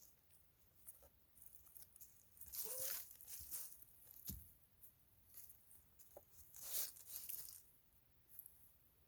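Chickens scratching and pecking through dry leaf litter: faint scattered rustles and clicks, with two louder crackling scuffles about three and seven seconds in.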